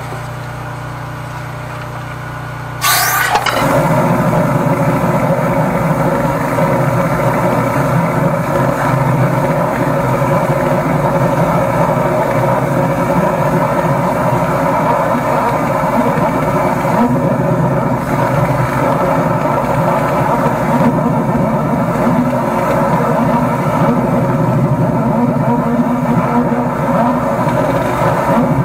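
An engine running at a low steady hum, then about three seconds in a brief noisy burst, after which the engine runs louder and rougher at a steady pace.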